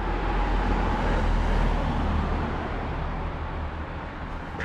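A road vehicle passing, its noise swelling and then fading, over a deep steady rumble.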